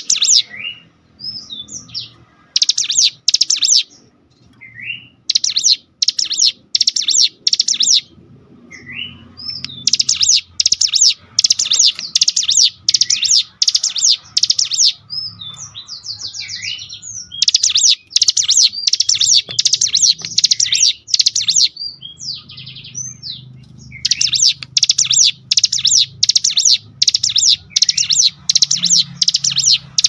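Ciblek gunung (a prinia) singing loudly. Its song is long runs of sharp, quickly repeated chattering notes, broken by short rising whistled notes.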